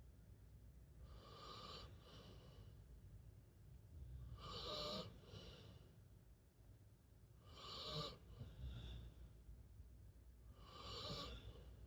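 A sleeping pet snoring softly: slow, noisy breaths about every three seconds, four in all, the middle two the loudest.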